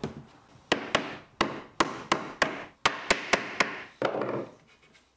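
F-clamps being set and tightened against MDF panels and plywood squares: a quick run of about a dozen short, sharp knocks and clicks, ending about four seconds in.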